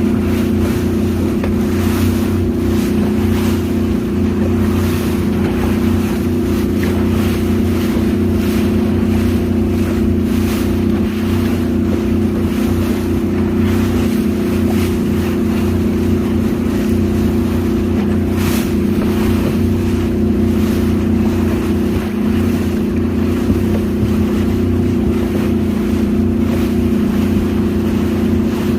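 Cruise boat's engine running steadily with an unbroken low drone, with wind on the microphone and water rushing past the hull.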